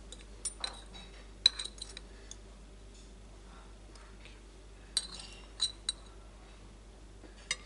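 A metal spoon and fork clinking against porcelain bowls and plates while serving. The clinks are scattered and come singly or in quick pairs, the sharpest about a second and a half in.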